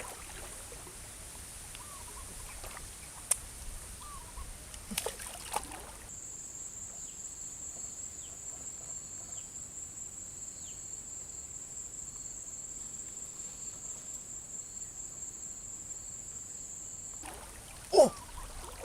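Rainforest ambience: a steady high-pitched insect drone, like a cicada, starts about six seconds in and stops suddenly near the end. Before it there are scattered faint chirps and clicks, and one short loud sound comes just before the end.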